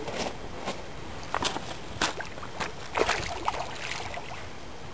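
Hooked carp splashing at the water's surface next to a landing net: a string of irregular, sudden splashes, the loudest about two and three seconds in.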